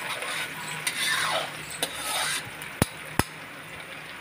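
Garlic and green chillies sizzling in hot mustard oil in an iron kadhai, with a steel spatula scraping and stirring through the oil in the first half. Two sharp clicks come a little under and a little over three seconds in, then only the sizzling goes on, quieter.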